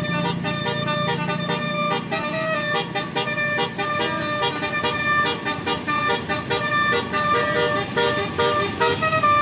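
Bus telolet horn, a set of multi-tone air-horn trumpets, playing a fast tune of short notes, several pitches sounding at once and changing in quick succession.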